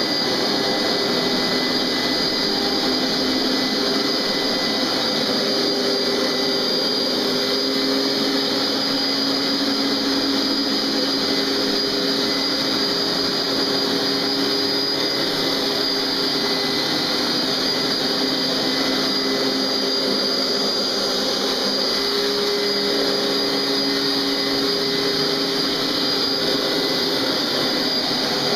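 Hoover SpinScrub SteamVac carpet cleaner running steadily as it scrubs and sucks dirty water out of a carpet: a constant motor whine over a rushing suction hiss, its pitch shifting a little now and then.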